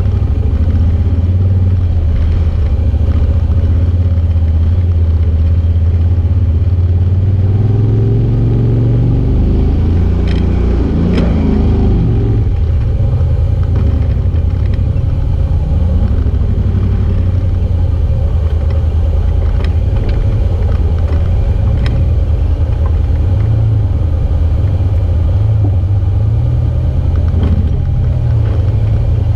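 Side-by-side UTV engine running under load, heard from on board as it drives a rough creek-bed trail: a steady low drone that steps up in pitch about eight seconds in, with a few short knocks and rattles.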